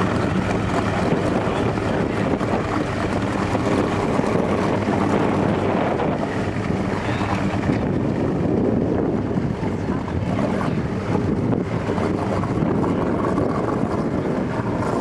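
Outboard motors of small racing powerboats running at low speed as the boats move off, with wind buffeting the microphone.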